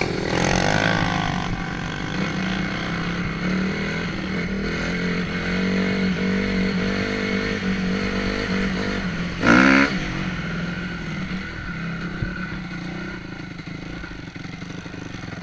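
Honda CRF250R dirt bike's single-cylinder four-stroke engine running under throttle while riding, its pitch rising and falling with the throttle. About nine and a half seconds in there is a short, loud rev that rises sharply in pitch.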